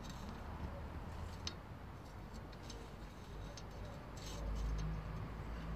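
Quiet outdoor ambience: a steady low rumble that grows louder about four and a half seconds in, with scattered faint ticks.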